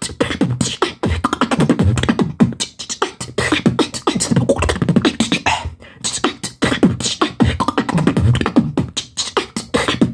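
Solo human beatboxing: a fast, unbroken stream of sharp percussive mouth sounds over deep bass tones.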